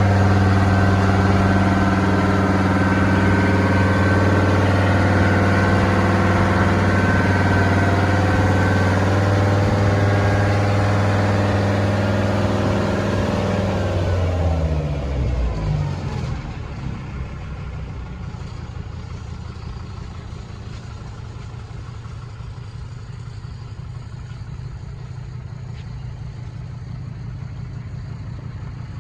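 An engine running steadily at a constant speed, then winding down in pitch and stopping a little past halfway; a quieter low hum carries on after it.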